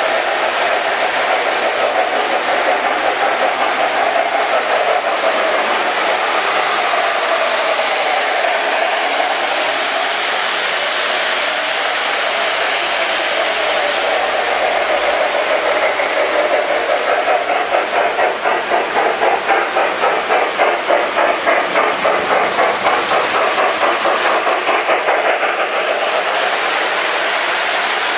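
Lionel O-gauge model of a Norfolk & Western J-class 4-8-4 steam locomotive pulling streamliner passenger cars on three-rail track: a steady whir and rumble of motor and wheels. From about halfway through there is a rhythmic pulsing of about two to three beats a second, which grows louder as the train comes close.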